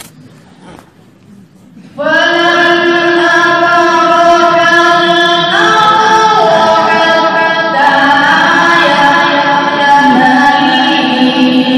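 A voice chanting melodic Quranic recitation (qirat) in long, drawn-out notes, starting about two seconds in after a quiet start and stepping to a new pitch every two or three seconds.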